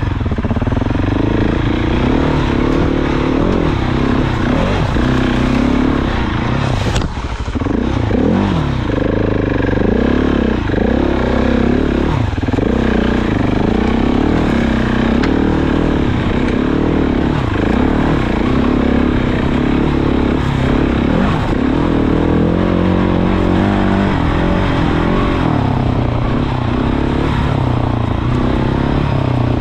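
Motorcycle engine running under the rider on a dirt trail, its revs rising and falling as the throttle opens and closes. About seven seconds in there is a brief sharp knock with a short dip in the engine sound.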